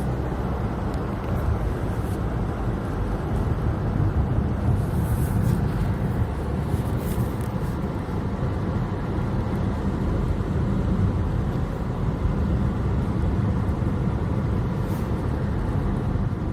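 Steady road and engine noise heard from inside a moving car, a low, even rumble with no let-up.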